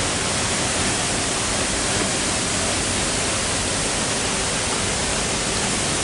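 Steady rush of a nearby waterfall: an even hiss of falling water with no change in level.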